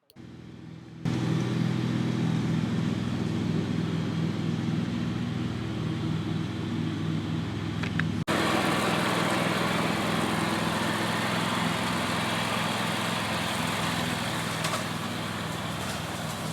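Small engine running steadily. About eight seconds in there is an abrupt cut, and after it the engine is louder with more hiss.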